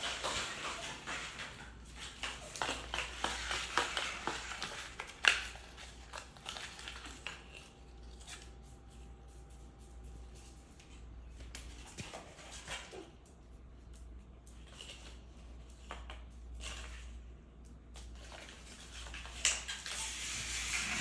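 Cardboard crinkling and crackling as a cockatoo carries and handles it. The sound is busiest in the first six seconds, with one sharp crack about five seconds in. After that it thins to scattered clicks, then picks up again near the end.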